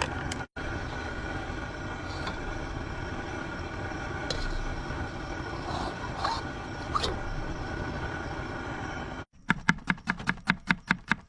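A steady rushing, rumbling noise, cut off briefly about half a second in. Near the end it gives way to music with a quick, even pulsing beat, about five pulses a second.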